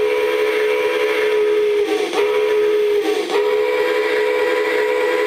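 Model train horn sound effect from a DCC sound-equipped locomotive, sounding three blasts in a long, short, long pattern. It is a steady multi-note chord, and the last blast is still sounding at the end.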